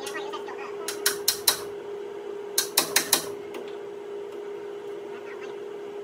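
Two quick runs of four sharp metallic taps, a hammer striking the steel of a combine's shaker assembly. The first run comes about a second in and the second around the middle, with a steady hum underneath.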